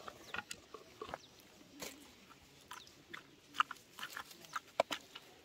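Wooden pestle pounding tomatoes and spices in a clay mortar: scattered soft knocks, coming closer together in the second half.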